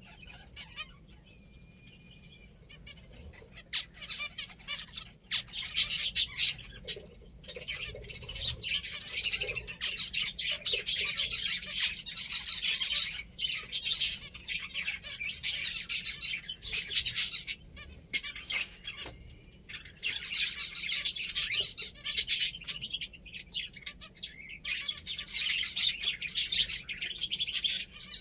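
Pet finches chirping busily, many quick high chirps overlapping in runs with short pauses, starting after a few quiet seconds.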